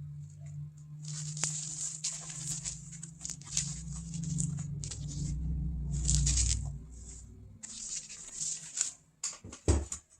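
Vinyl and lining material rustling as it is handled and fed, over a steady low sewing-machine motor hum that stops about seven seconds in. A few sharp knocks follow near the end.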